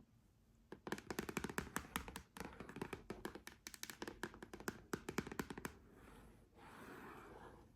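Long fingernails tapping rapidly in quick clusters of sharp clicks. About six seconds in the tapping gives way to a softer, continuous nail scratching.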